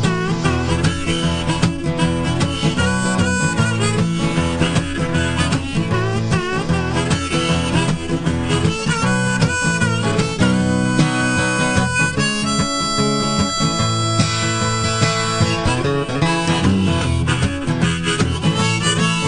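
Blues music led by harmonica, with bending notes and a stretch of long held notes about halfway through, over guitar accompaniment.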